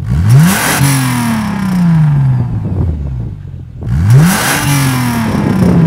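Mercedes-Benz W212 E350 V6 through a Fi Exhaust valvetronic exhaust with its valves closed, revved hard twice from idle. Each rev climbs quickly in pitch and then winds back down slowly over about two seconds.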